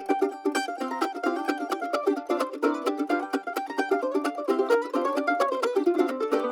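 Background music: a quickly picked plucked-string melody with no bass or drums.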